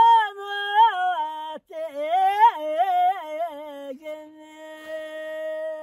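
An elderly man singing unaccompanied in a high, ornamented voice, with wavering, gliding phrases. There is a short break about a second and a half in, and a long held note from about four seconds in.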